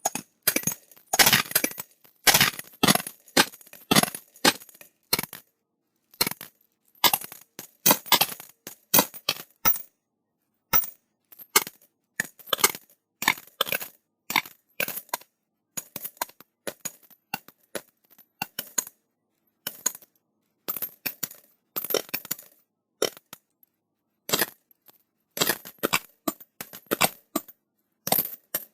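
Coins dropped into a glass, clinking against the glass and each other in irregular clusters of sharp rattling strikes with short silent gaps between handfuls.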